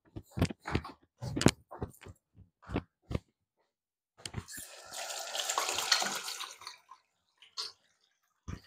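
A quick run of light knocks and clicks, then, a little after halfway, about three seconds of hiss like water running from a tap, and two more clicks near the end.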